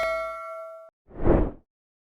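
Ringing tail of a bell-like chime that fades and cuts off just under a second in, followed by a brief swelling rush of noise, both editing transition sound effects.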